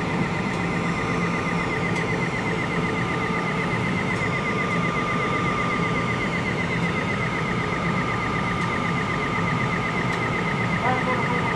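ALP-46A electric locomotive standing at the platform with its electrical equipment running. It gives a steady hum and whine, with a high tone that warbles quickly throughout.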